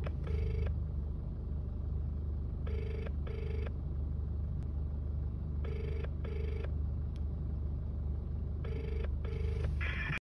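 Telephone ringback tone played through a phone's loudspeaker: a double ring, two short buzzes, repeated four times about every three seconds, over a steady low hum.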